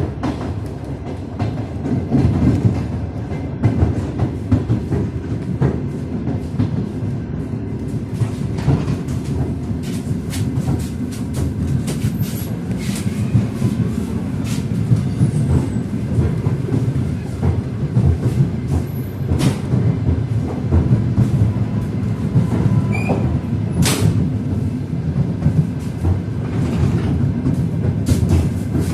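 Train wheels clattering over the rail joints, heard from on board a moving passenger train: a steady low rumble with sharp clicks scattered through it.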